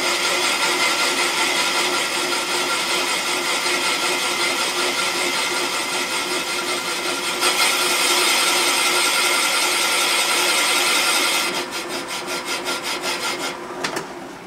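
Machine-driven boring cutter spinning in a cast-iron Pontiac 455 cylinder head, cutting the exhaust seat pocket a couple thousandths wider to take a hardened seat insert: a loud, steady grinding cut. It grows a little louder about halfway, turns uneven and pulsing near the end, then stops.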